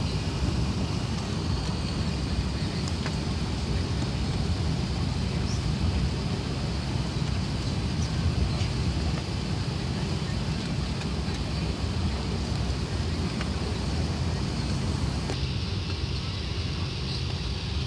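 Airbus A380 cabin noise heard from a window seat: a steady low rumble of engines and airflow with a hiss above it.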